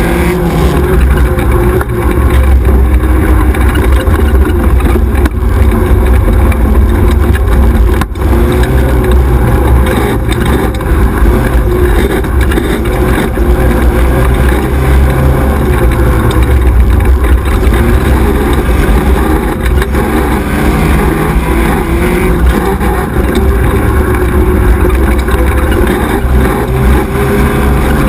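XY 1100R 4x4 buggy's engine running hard at race pace, heard onboard, its pitch rising and falling as the driver accelerates and lifts, with one brief dip about eight seconds in.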